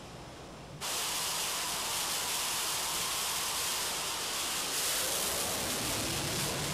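Carrier jet fighter engines running at high power: a loud, steady rushing hiss that starts abruptly about a second in, over a quieter rushing noise.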